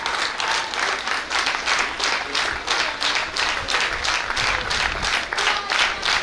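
Audience applauding, clapping together in a steady rhythm of about three claps a second.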